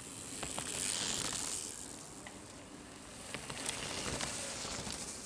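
Mountain bikes passing on a leaf-strewn dirt trail: a hiss of tyres over dirt and dry leaves that swells about a second in and again near the end, with scattered clicks and ticks.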